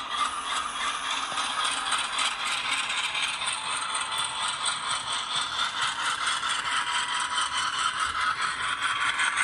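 HO scale GE C40-9W model diesel locomotive running along the track: a fast, even mechanical rattle of fine clicks from its drive and wheels, with a faint steady whine underneath in the second half.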